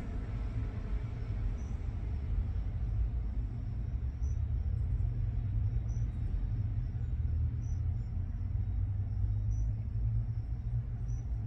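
Steady low rumble of idling vehicle engines. A faint, short, high chirp repeats about every two seconds.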